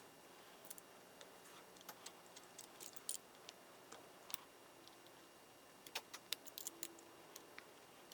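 Faint, scattered light clicks and taps of small metal tools and parts being handled, in two little clusters, about a third of the way in and again near the end.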